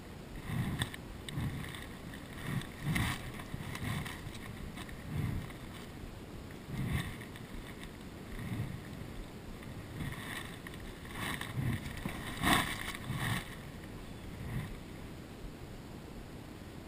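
Small boat's hull knocking and water lapping against it in irregular short bursts, roughly one a second, the loudest a little past two-thirds of the way through.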